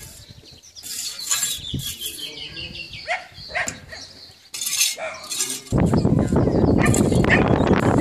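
Outdoor ambience with faint scattered bird chirps, then from about six seconds in a sudden loud, steady rush of wind buffeting the microphone.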